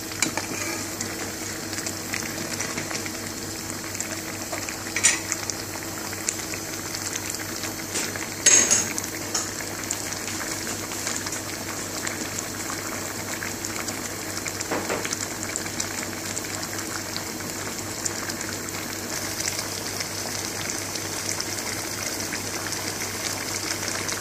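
Lentil dhal boiling hard in a shallow pan: a steady bubbling and popping. A couple of short knocks come about five and eight seconds in.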